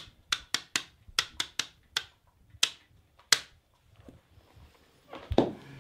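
A quick, irregular run of sharp clicks, about a dozen in the first three and a half seconds, then a louder knock near the end.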